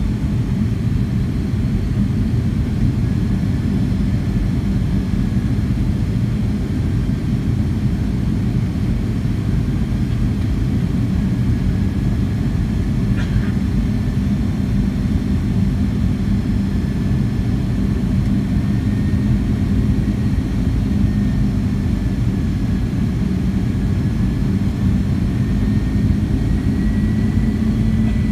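Inside the cabin of a Boeing 757-200 on approach: a steady low drone of the turbofan engines and rushing airflow, with a faint engine whine that rises slightly near the end as thrust is adjusted. A soft click about halfway.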